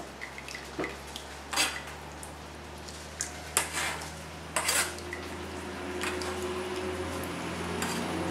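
Metal ladle pressing and scraping strained vegetables in a wire mesh strainer over a stainless steel stockpot, with several sharp clinks of metal on metal, the clearest about one and a half and four and a half seconds in. A low steady hum runs underneath.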